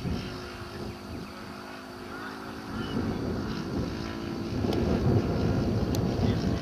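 Model aircraft engine converted from glow to petrol, droning steadily as the radio-controlled plane flies overhead, getting louder about two-thirds of the way through as it comes closer, with some wind noise on the microphone.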